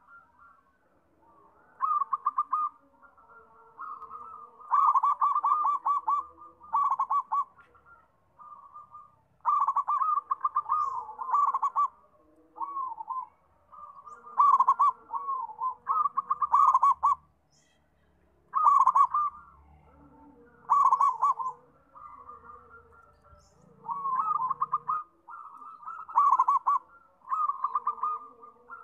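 Zebra doves (perkutut) cooing: repeated phrases of fast, trilling coos, each about a second long, with short pauses between them. Loud phrases alternate with softer ones.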